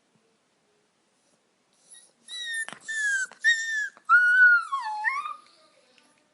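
Puppy crying: after a short silence, three short high whines in quick succession, each falling slightly in pitch, then a longer whine that dips and rises again.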